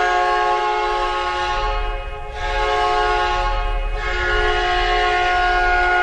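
The original Winnipeg Jets' 1992 hockey goal horn blaring, a loud chord of several held tones, dipping briefly about two and four seconds in.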